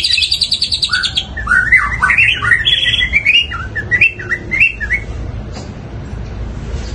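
Long-tailed shrike (cendet) singing loudly: a rapid buzzy rattle in the first second, then a run of short, quick chirps that stops about five seconds in.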